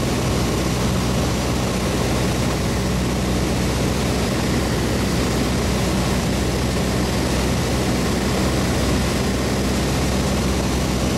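Cessna 152's Lycoming O-235 four-cylinder engine and propeller running steadily, heard from inside the cabin as a constant low hum with a broad rush of noise.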